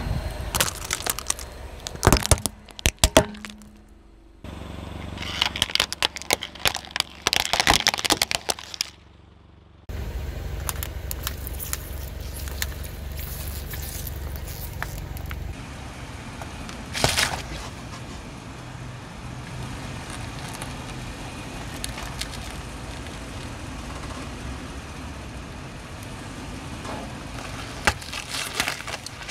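A car tyre rolling over and crushing plastic syringes, then water beads and a watermelon, with a run of sharp plastic cracks and crackling crunches in the first nine seconds. After that comes a steady low running noise of the car, with one loud crunch and a few smaller cracks later on.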